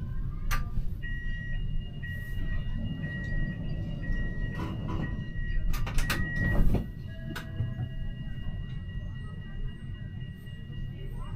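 Siemens Avenio tram heard from the driver's cab: a steady low running rumble, with a high electronic beep repeating about twice a second for several seconds, then holding as one steady tone. A few sharp clicks and a louder knock come about halfway through.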